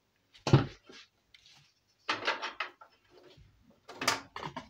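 Knocks and clatter of computer hardware being handled and set down: a loud knock about half a second in, then two shorter rattling clusters.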